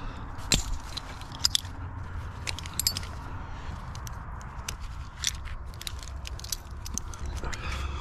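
Metal climbing hardware (carabiners and lanyard fittings) clinking and clicking as it is handled and clipped, in many short, sharp clicks scattered throughout, over a steady low rumble.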